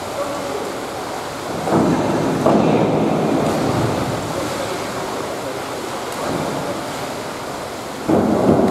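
Rushing, splashing water. It swells louder about two seconds in and again near the end.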